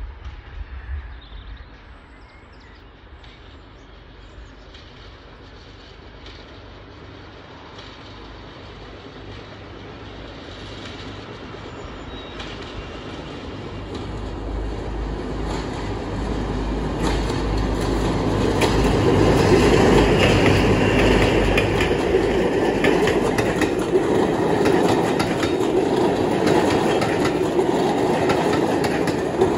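Clayton Class 17 diesel locomotive approaching and passing, its engine rumble growing steadily louder to a peak about two-thirds of the way in. Its train of coaches then rolls past, the wheels clicking and rumbling over the rails.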